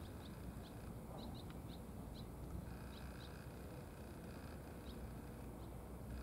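Faint, short high chirps of a small bird, about a dozen scattered irregularly, over a steady low outdoor rumble.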